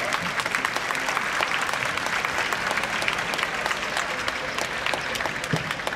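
Spectators applauding: many hands clapping steadily.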